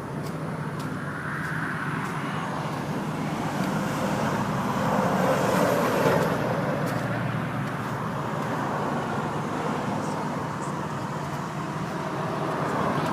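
Road traffic: a vehicle's engine and tyre noise swelling to its loudest about six seconds in and fading, over a steady engine hum.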